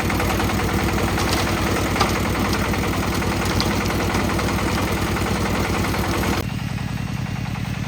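Engine of a concrete mixer running steadily, with a few sharp clicks and knocks over it. About six seconds in, the higher rattle drops away suddenly and only the engine note carries on.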